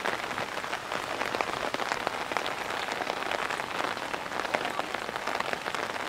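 Heavy downpour of rain, a steady hiss thick with many separate drops striking close by.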